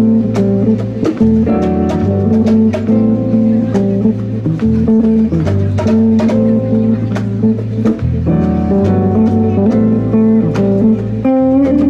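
A small jazz band playing an instrumental passage live: electric bass, keyboard and guitar, with short sharp hits keeping time.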